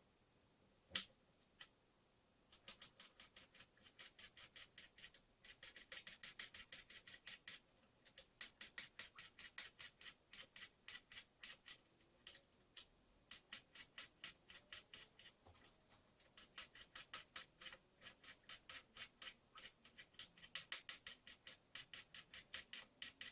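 Kitchen knife chopping on a cutting board in quick, even strokes, about four a second, in runs with short pauses, after two single clicks at the start.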